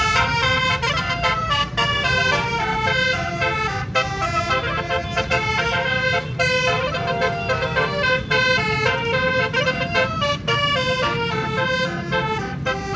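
A tour bus's multi-note 'basuri' telolet air horn, an 18-note set, playing a fast melody of quick stepped notes without a break. A steady low rumble runs underneath.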